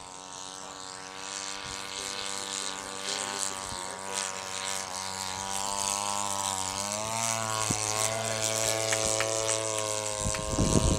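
Engine and propeller of a radio-controlled scale Sopwith Pup biplane droning in flight, growing steadily louder, with the pitch climbing about seven seconds in. Wind rumbles on the microphone near the end.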